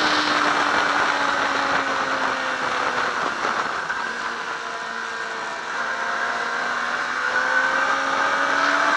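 Yamaha R6 inline-four sportbike engine heard from on board, with wind rush: the engine note falls over the first half as the bike slows, then rises steadily again as it accelerates.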